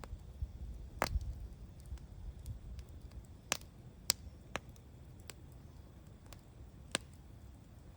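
Wood campfire crackling: irregular sharp pops and snaps, a few louder ones among fainter ticks, over a low rumble of burning.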